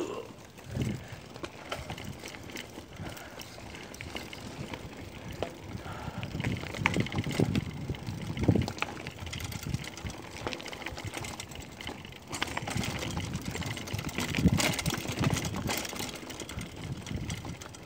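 Mountain bike rolling over a loose dirt and gravel trail: tyres crunching on stones, with the bike and handlebar-mounted camera rattling and knocking irregularly over bumps.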